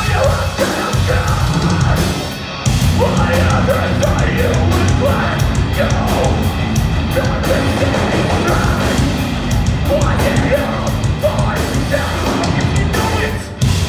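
Metalcore band playing live: heavily distorted guitars, bass and drums under screamed vocals. The sound thins out briefly about two seconds in, then the full band crashes back in.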